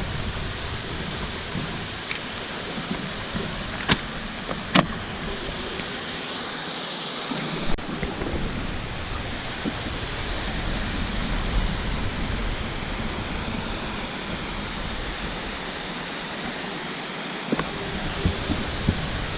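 Waterfall: a steady, even rush of falling water, with a few sharp clicks about two, four and five seconds in.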